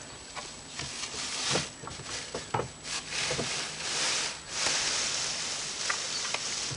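Loose hay rustling and swishing in repeated strokes as it is handled and stuffed into a homemade hand baler box, with a few light knocks.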